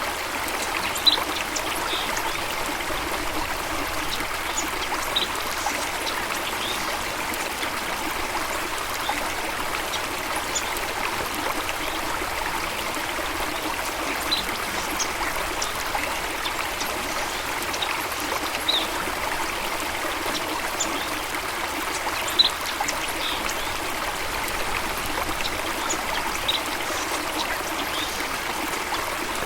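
Running water rushing steadily, with short, high bird chirps scattered throughout.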